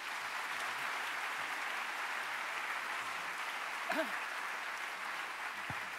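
Large audience applauding steadily, a sustained even clapping that fills the hall, with a brief voice heard through it about four seconds in.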